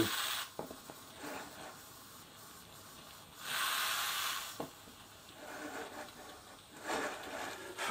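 Coleman 533 Sportster pump-pressurised petrol stove burner hissing as it warms up, swelling louder for about a second near the middle. The flame is burning on only one side of the burner: the stove is not yet running properly after standing unused.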